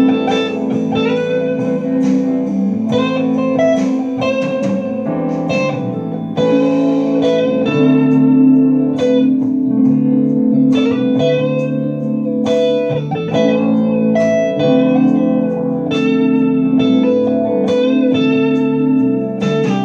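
Electric guitar playing a slow, soulful blues solo over a blues backing track, with single-note lines and bent notes that glide up in pitch.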